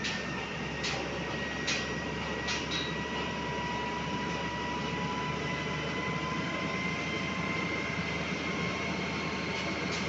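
Truck-mounted concrete boom pump running: a steady engine hum under a thin machine whine that rises slowly in pitch, with a few sharp knocks in the first three seconds.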